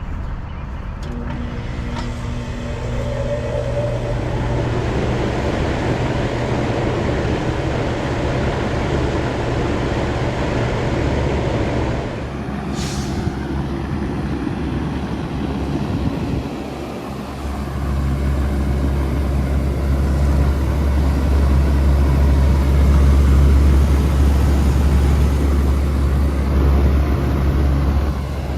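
Bard wall-mount air conditioning units running in cool mode, a steady mechanical hum and fan rush. The sound changes abruptly about twelve seconds in, and about seventeen seconds in a deeper, louder hum comes on and holds.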